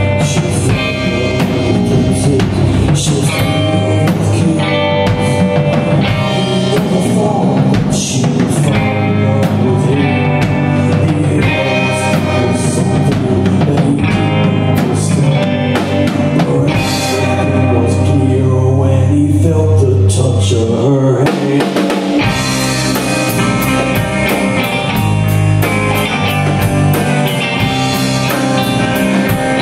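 Live rock band playing: two electric guitars, electric bass and a drum kit. The bass and kick drop out briefly about 21 seconds in, then the full band comes back in with crashing cymbals.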